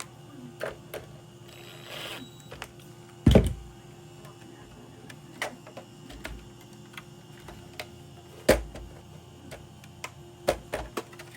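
Scattered clicks and knocks of small parts and tools being handled on a workbench, with two louder knocks, one about three seconds in and one about eight and a half seconds in, and a quick run of clicks near the end.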